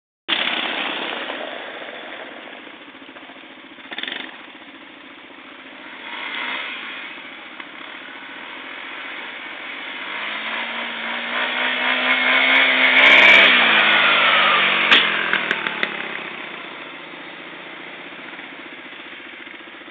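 Yamaha Bruin ATV engine running as the quad comes up the road. It grows louder to a peak about 13 seconds in as it passes close by, then its pitch falls as it moves away. A few sharp clicks follow just after the pass.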